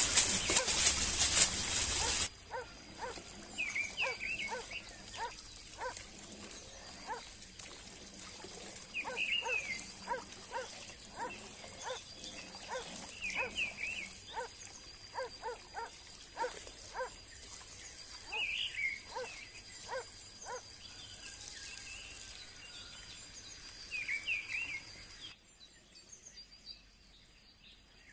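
Animal calls: runs of short, evenly spaced low calls, with higher chirping calls every few seconds. A loud hissing noise fills the first two seconds and cuts off suddenly.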